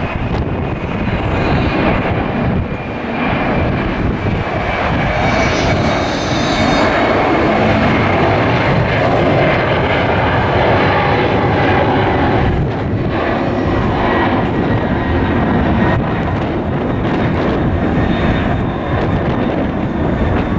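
Four-engined Boeing 747-400F freighter climbing out after takeoff, its jet engines running at climb power: loud, steady jet noise.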